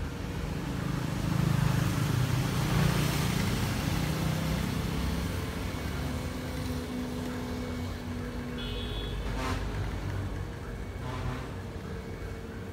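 A motor vehicle passing by, its low rumble swelling a second or two in and then fading away.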